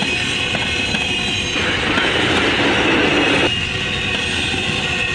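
A CSX intermodal freight train's cars rolling past at speed: a steady rumble and rattle of steel wheels on rail, with a thin, high wheel squeal running above it.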